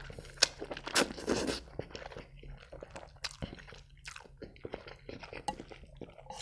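A person slurping up a mouthful of spicy instant noodles, then chewing with wet mouth clicks, close-miked. The slurping comes in a couple of hissing pulls about a second in; after that come the smaller clicks and smacks of chewing.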